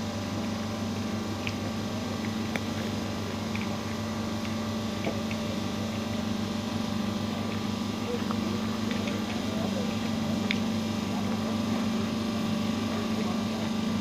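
Steady low machine hum, with a few faint short clicks over it.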